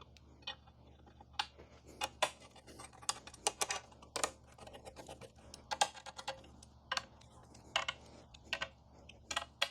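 Irregular sharp metallic clicks and taps, tools working on metal as the luggage rack's M8 flathead bolts are tightened with a 5 mm hex key.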